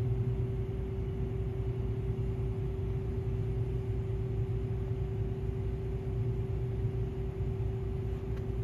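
Combine harvester running, heard from inside the cab: a steady low engine drone with a constant hum held at one pitch.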